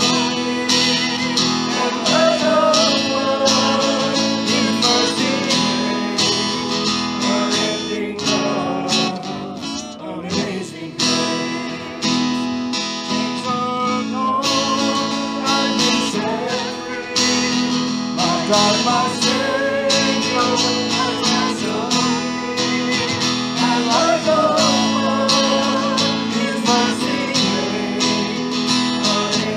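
Worship song with a strummed acoustic guitar and singing.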